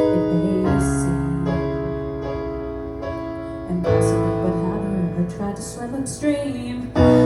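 Keyboard playing sustained chords in an instrumental passage between sung lines, each chord struck and left to ring, with new chords about a second in, around four seconds in and near the end.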